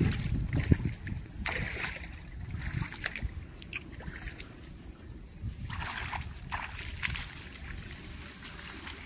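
Wire crab traps being handled in a small wooden boat: scattered sharp clicks and rattles over a steady low rumble.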